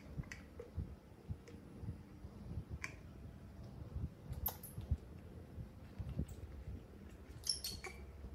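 Quiet handling noise: soft thumps and scattered small clicks as young monkeys shift about in a plastic basket, with a quick run of sharp clicks near the end.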